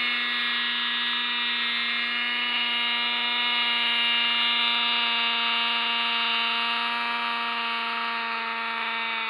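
O.S. .28 two-stroke glow-fuel engine of a 1980 GMP Cricket model helicopter running at steady hovering speed, a constant buzzing whine with rotor noise. It gets slightly quieter near the end as the helicopter sinks lower.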